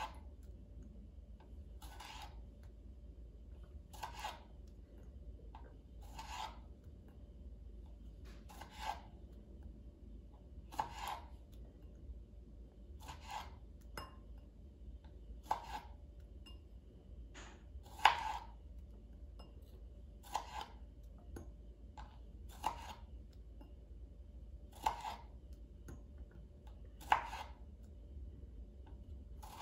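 Knife slicing cherry tomatoes in half on a plastic cutting board: a sharp knock of the blade meeting the board about every two seconds, one for each tomato.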